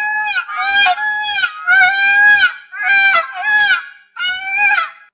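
Goose honking: a quick series of loud, nasal honks, about seven or eight in five seconds.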